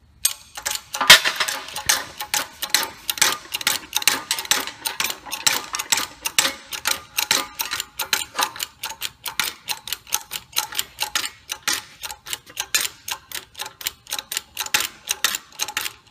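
Rapid clicking, about four or five clicks a second, from short strokes on the pump handle of a 12-ton hydraulic shop press's bottle jack, inching a slight extra bend into a tail spar.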